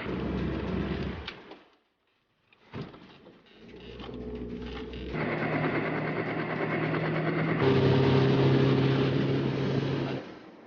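A motor runs steadily with a droning hum, in several short stretches. Each stretch holds a steady engine speed, and the pitch jumps abruptly between them. There is a brief break about two seconds in.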